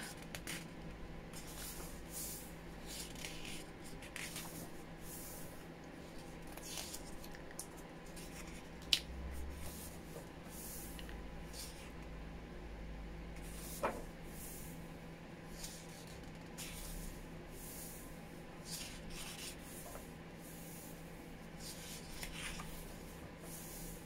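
Pages of a large paperback book being turned and smoothed flat by hand: repeated soft paper swishes and rustles, with two sharper ticks.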